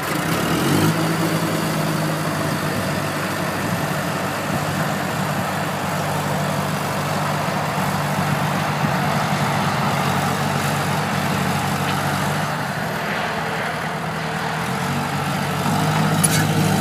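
Komatsu D31PX crawler bulldozer's diesel engine running at a steady speed, its pitch and level unchanging apart from a firming up about a second in.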